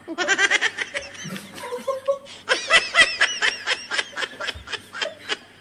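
Several people laughing hard, with rapid high-pitched giggling.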